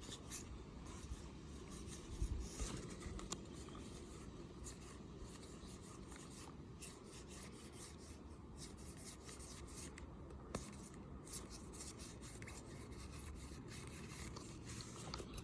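Faint rubbing and light ticking of trading cards being slid through and handled one by one, with a couple of slightly sharper clicks.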